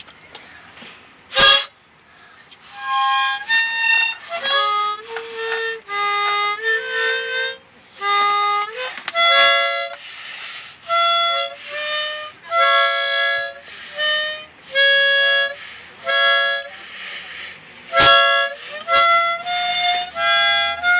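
A small blown reed instrument sounding short, uneven chords, one after another, with breathy hiss between them. There is a sharp knock about a second and a half in and another near the end.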